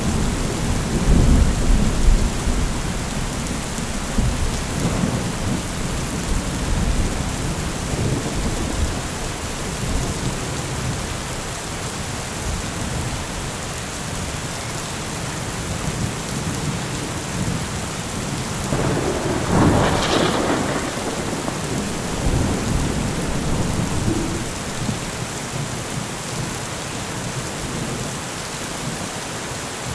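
Steady heavy rain during a thunderstorm, with low thunder rumbling in the first few seconds and a brief, louder burst about twenty seconds in.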